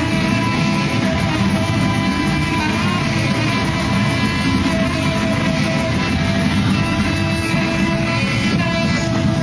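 Saxophone played live over loud, dense electronic music.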